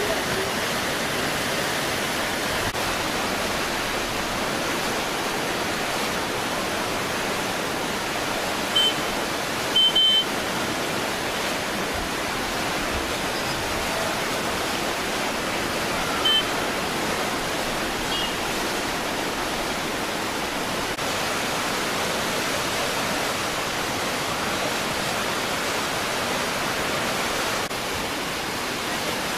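Flash-flood water rushing in a steady roar of noise. Short high beeps cut through it three times, about 9, 10 and 16 seconds in.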